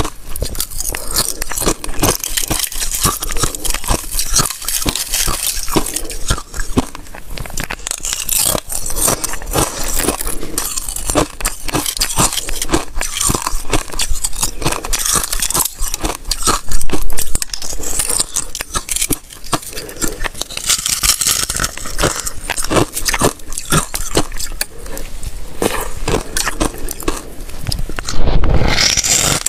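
Thin layered ice crunching as it is bitten and chewed, with crackling as flakes are snapped off the block by fingers. Dense, continuous crackle throughout, with two louder crunches, one about halfway and one near the end.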